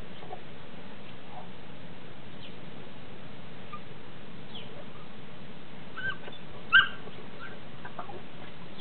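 Dogs play-wrestling, giving faint short whimpers and one loud short yelp a little under seven seconds in, over a steady background hiss.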